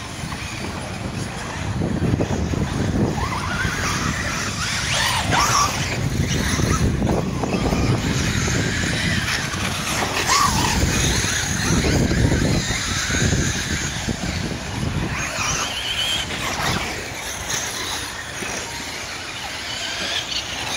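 Radio-controlled truggies racing on a dirt track. Their motors whine up and down in pitch as the cars accelerate, brake and pass by, loudest through the middle stretch.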